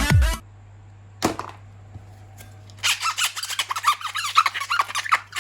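Electronic dance music cuts off just after the start. A single click follows, then a rapid run of high, wavering squeaks like something being rubbed, from about three seconds in to the end.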